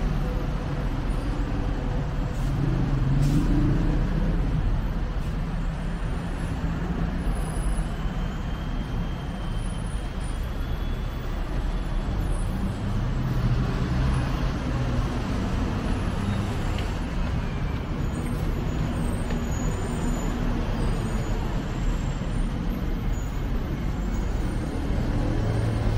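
Steady road traffic noise, with engine rumble swelling a few times as vehicles pass.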